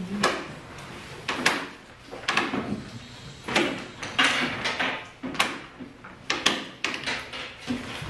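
Classroom rustle: textbook pages being flipped and paper rustling, broken by a string of sharp knocks and clatters from wooden desks and chairs.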